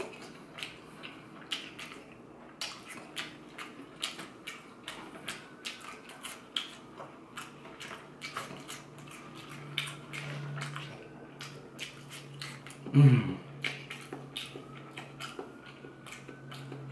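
Close-up chewing and mouth sounds of a person eating fried fish, with frequent small crisp clicks and smacks. A short satisfied 'mmm' about 13 seconds in.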